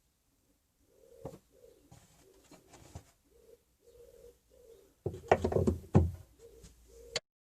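A pigeon cooing in a run of short, low calls, repeated in phrases. A sharp knock comes about a second in, and a burst of loud knocks and clatter comes around five to six seconds in.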